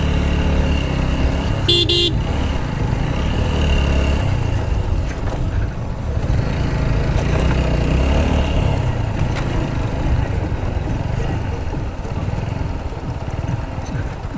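Motorcycle engine running while the bike is ridden, with a short horn toot about two seconds in.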